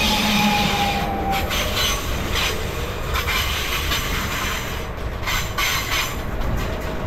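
Electric multiple unit rolling slowly along the platform, braking: steady wheel-on-rail noise with a string of uneven clacks. A whine falls in pitch over the first second or so.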